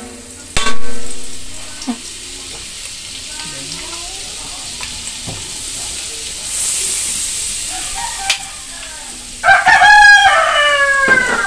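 Butter sizzling as it melts in hot oil in a steel wok, with a metal spoon scraping butter from a jar and knocking against the wok once, ringing briefly, about half a second in. Near the end a rooster crows loudly, its call falling in pitch over about a second and a half.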